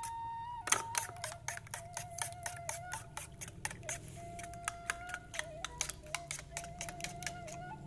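Metal spoon beating eggs in a ceramic bowl, clinking against the bowl several times a second in an uneven rhythm. Background music with a slow, held melody line plays underneath.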